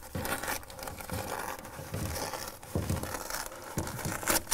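Fiberglass batt insulation being torn apart and pulled back by hand: an uneven dry rustling and crumpling, with a sharper tear near the end.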